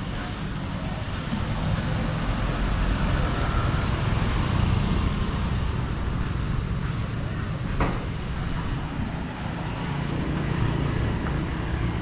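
Street traffic: vehicles passing on the road, the rumble swelling about two to five seconds in and again near the end, with one sharp click about eight seconds in.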